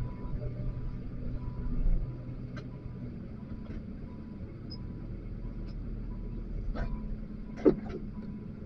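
XCMG LW500HV wheel loader's diesel engine running steadily, heard from the operator's seat, with a few short knocks and clunks, the loudest about three quarters of the way through.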